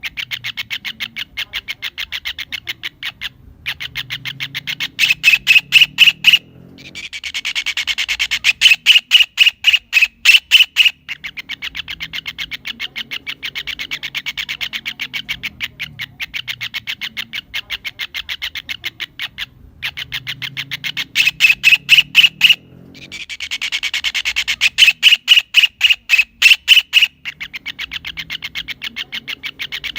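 Kingfisher calling: a fast, steady series of sharp, high notes that swells twice into louder, denser bursts, about 5 seconds in and again about 21 seconds in.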